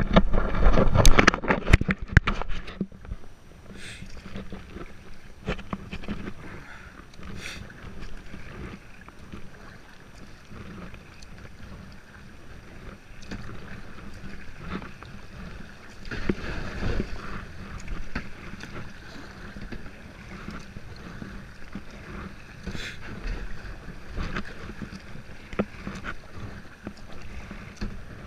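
Kayak paddling on a river: water splashing and sloshing with the paddle strokes, with occasional knocks on the hull. A run of loud knocks in the first three seconds.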